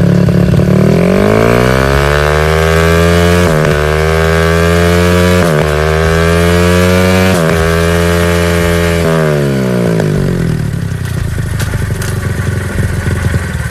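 Yamaha LC135's single-cylinder four-stroke engine revving through a LeoVince SBK aftermarket silencer. The revs climb over the first two seconds, hold high with three brief dips, then fall away about nine seconds in and settle to a low, uneven running.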